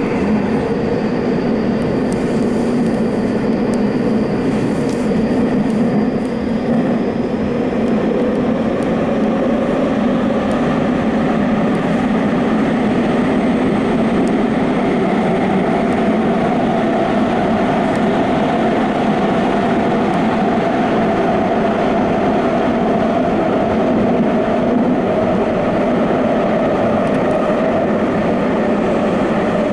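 Tokyo Metro Fukutoshin Line express train running at speed through a subway tunnel: a steady rumble of wheels on rail with a faint whine that rises slightly in pitch about halfway through.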